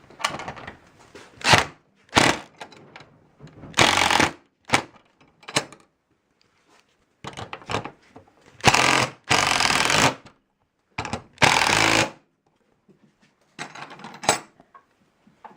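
Power drill driving screws into garage door hardware in a run of short bursts, the longest under a second, with a rapid ratcheting rattle.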